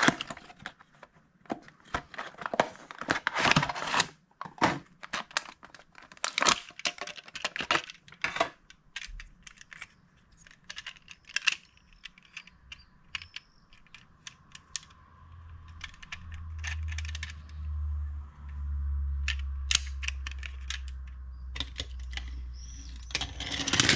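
Cardboard box and plastic packaging tray of a diecast model car being handled and opened: quick crinkles, tears and clicks. In the second half a low steady rumble sets in as the die-cast car is rolled along a windowsill.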